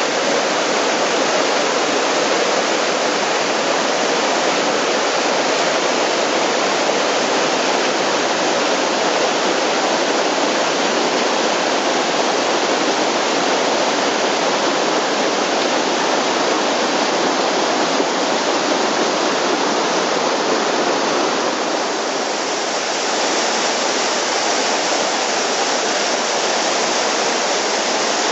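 Rushing water of a rocky mountain stream cascading over boulders and small falls: a steady, dense rush with no break. About three-quarters of the way through it dips briefly and then sounds brighter and hissier.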